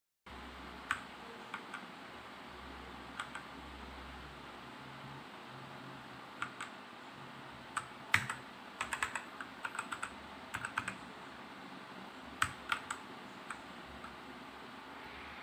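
Keys of a Machenike K500 mechanical keyboard clicking as they are pressed: scattered single keystrokes, then a quicker run of typing about nine to eleven seconds in, over a faint steady hiss.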